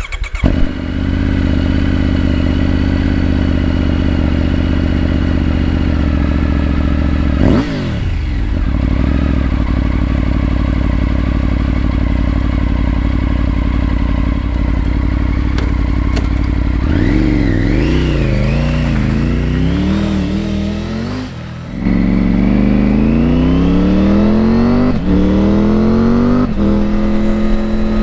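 Triumph Tiger 900's three-cylinder engine through an Arrow exhaust: it comes in suddenly and idles steadily, with a single throttle blip about a third of the way in and a run of blips later on. Near the end the bike pulls away, the note rising steadily and dropping twice as it shifts up through the shift assist.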